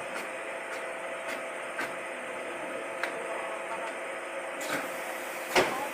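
Shoe-sole printing machine running with a steady hum and hiss, faint ticks about twice a second, and one sharper click near the end.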